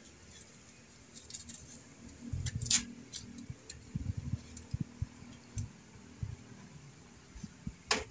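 Wood fire crackling in a metal drum stove under a bamboo cooking tube: irregular sharp cracks and clicks, the loudest a little before 3 s in and again near the end, with soft low thumps in between.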